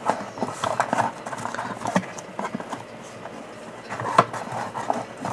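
A hand rummaging in a tightly packed cardboard box of trading cards: cards and cardboard scraping and rustling, with irregular knocks, the sharpest about four seconds in.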